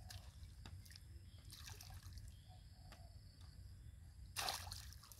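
Muddy water dripping and trickling as a plastic bowl scoops it from a shallow puddle, with one louder splash a little past four seconds in.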